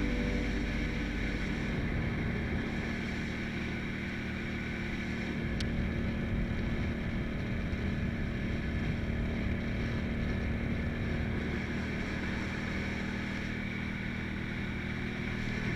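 Motorcycle engine running at a steady cruising speed, with wind rushing over a helmet-mounted camera.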